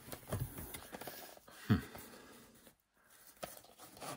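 Plastic Betamax cassettes being handled and slid against a cardboard box: light irregular rubbing, scraping and small clicks, with one louder brief bump a little under two seconds in.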